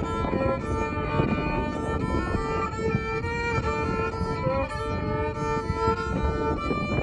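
Solo violin improvising, mostly in long held notes, with wind rumbling on the microphone underneath.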